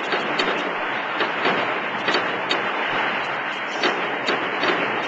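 Fireworks exploding close by: a dense, continuous crackle broken by sharp bangs about twice a second at uneven spacing.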